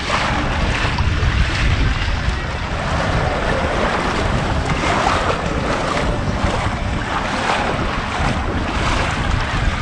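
Wind buffeting the microphone over small waves lapping on a sandy shore, a steady rushing noise with a heavy low rumble.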